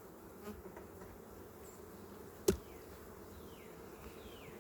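Honeybees buzzing steadily around an opened hive, with a single sharp knock about halfway through as the wooden hive parts are set back together.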